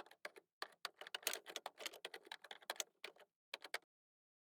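Fast typing on a computer keyboard: quick clicking keystrokes in uneven clusters that stop suddenly near the end.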